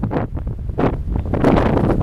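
Storm-force wind buffeting the camera microphone in heavy gusts, a dense rumble that dips briefly and then grows stronger from about a second in.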